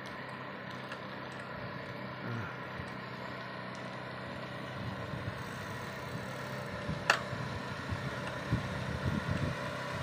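Small motor scooter engine running at a steady pace, an even hum that holds the same pitch throughout, with one sharp click about seven seconds in.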